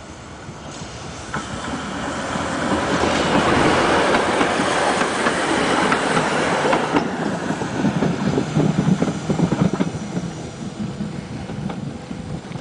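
Ex-Bielefeld eight-axle articulated tram passing close by on its departure. The rolling noise swells as it comes up and is loudest about four seconds in. After that it gives way to an uneven clatter of wheels over the rails, which fades as the tram moves away.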